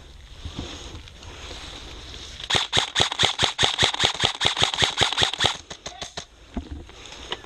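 Airsoft gun fire: a rapid string of sharp shots, about ten a second for some three seconds, starting a couple of seconds in. A few scattered single shots follow, and one more comes near the end.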